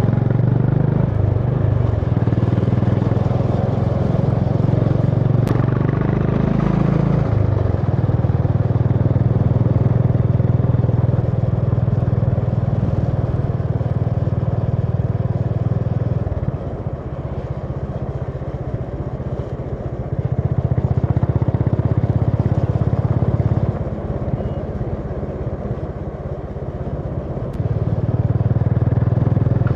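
Honda CB350 H'ness motorcycle's single-cylinder engine running while riding, with the throttle worked: the note rises briefly about six seconds in, then drops back off the throttle twice in the second half and picks up again each time.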